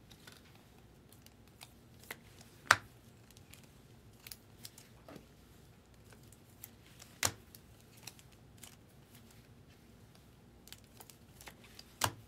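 Trading cards and a clear plastic card sleeve or top loader being handled on a table: light rustling with scattered small clicks and taps, three of them sharper.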